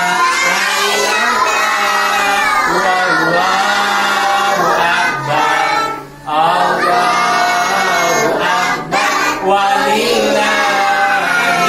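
A group of young children singing together, with a brief break about six seconds in.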